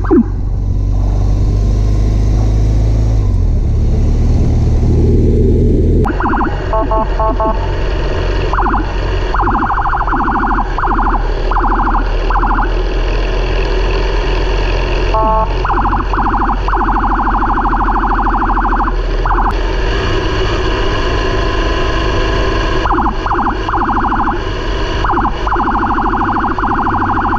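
Police escort vehicle's siren, switched on about six seconds in and sounding a fast-pulsing tone in runs of a few seconds, over the steady drone of the vehicle's engine.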